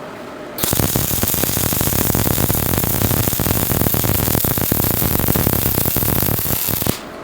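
Industrial welding robot striking an arc and welding a seam: a steady, dense crackle that starts suddenly about half a second in, runs for about six seconds and cuts off abruptly near the end.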